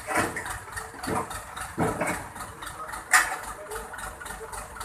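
Forklift engine running steadily, crossed by four sharp knocks; the loudest comes a little after three seconds in.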